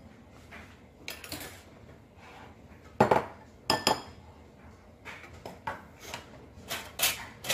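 Kitchen utensils and dishes clinking and clattering as they are handled: a series of sharp knocks, some with a short metallic ring, the loudest about three seconds in.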